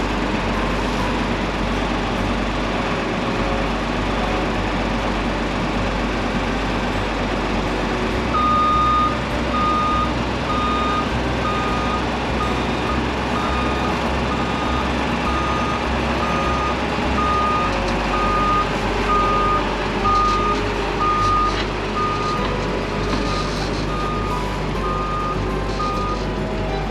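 Farm machinery running steadily, with an electronic warning beeper joining about eight seconds in and sounding at an even rate of a little more than one beep a second.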